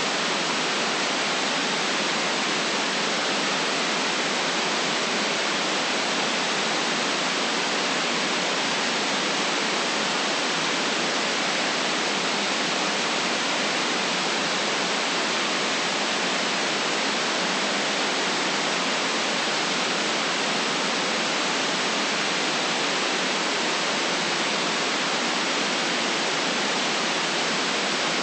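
Steady white noise: an even, unchanging hiss with no deep bass and no very high treble.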